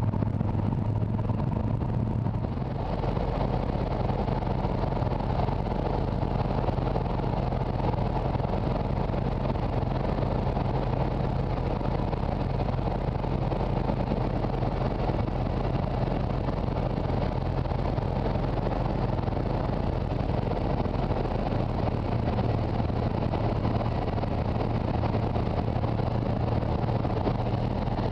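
Cabin noise of a Piper Cherokee 235's six-cylinder Lycoming engine and propeller running at high power through the takeoff roll and climb-out: a steady, loud drone that grows fuller about two and a half seconds in. Heard from a headset-mounted camera microphone inside the cockpit, with no intercom feed.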